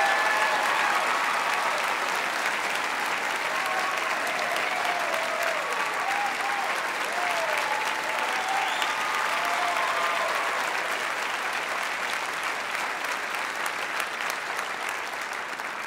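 Live theatre audience applauding steadily, with a few voices calling out over the clapping; the applause dies down a little toward the end.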